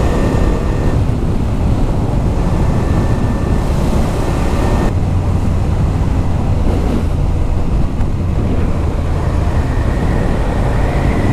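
Wind rushing over the microphone while riding, with the Suzuki SV 650's V-twin engine running underneath as a steady low hum. About five seconds in the engine hum strengthens and the hiss above thins. The rider hears something odd in it and takes it to be the wind.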